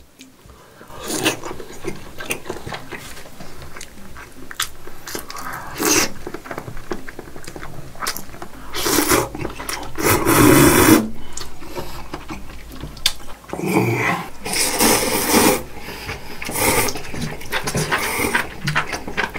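A person slurping glass noodles from a cup and chewing, with a series of wet slurps of varying length; the longest and loudest comes about halfway.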